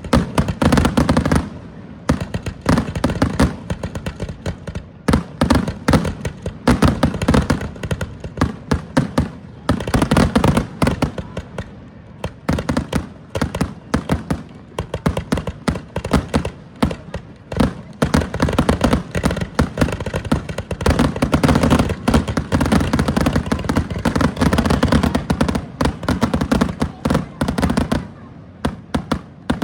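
Fireworks display: a dense, rapid barrage of bangs and crackling bursts with booming echoes, dying away near the end.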